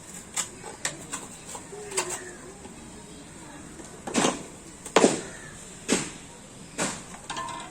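Bicycle parts being worked on by hand: a series of short, sharp scraping or knocking strokes, roughly one a second, louder ones in the second half.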